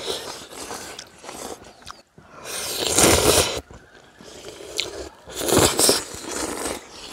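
People slurping ramyun noodles from chopsticks: two long slurps, about two and five seconds in, with quieter chewing between.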